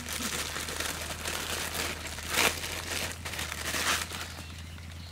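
Plastic bag of noodles crinkling and rustling as it is handled and emptied, with louder bursts about two and a half and four seconds in.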